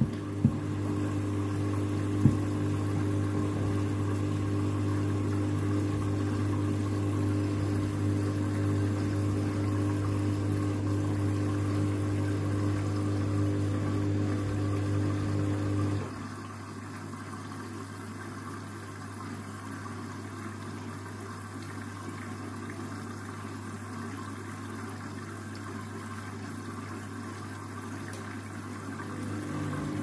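Candy front-loading washing machine in the cool-down stage of a 90° whites wash: a steady electric hum, the drain pump running, cuts off suddenly about halfway through. After it, a quieter swishing of water and sudsy laundry in the turning drum, growing a little louder near the end.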